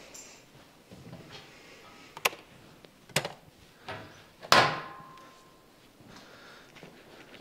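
Off-screen workshop handling noises: a few sharp knocks, then a louder metallic clank about four and a half seconds in that rings briefly.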